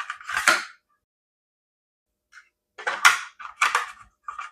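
Plastic smoke alarm and its ceiling mounting plate being handled: short clattering knocks and rattles, one just after the start and three close together near the end.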